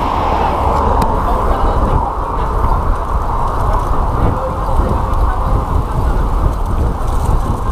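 Loud steady wind buffeting on a handlebar-mounted action camera's microphone as a road bike rides along at speed.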